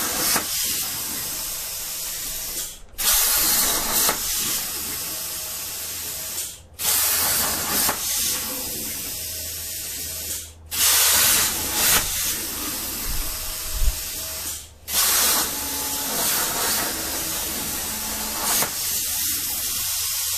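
CNC plasma cutter running at 45 amps: the torch arc gives a loud, steady hiss. It breaks off briefly and starts again four times, each start a little louder than the cut that follows.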